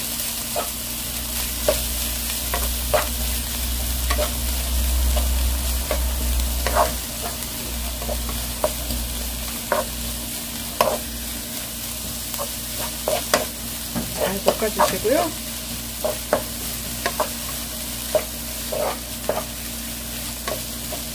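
Finely chopped vegetables sizzling in a little sesame oil in a hot nonstick pan, stir-fried over high heat with a wooden spatula that scrapes and taps against the pan in irregular strokes.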